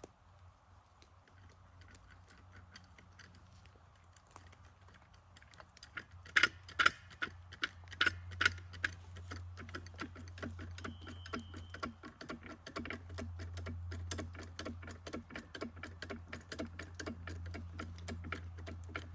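Rapid clicking and knocking: a few loud sharp knocks about six seconds in, then a quick, fairly even run of clicks that goes on to the end, over a low steady hum.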